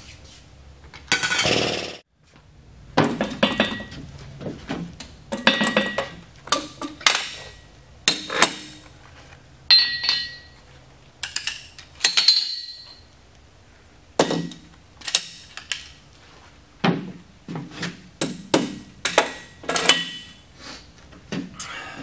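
Steel parts of a frac pump valve seat puller clanking and clinking, many separate strikes, some ringing. A loud second-long burst of noise comes about a second in, and a faint low hum runs until about halfway.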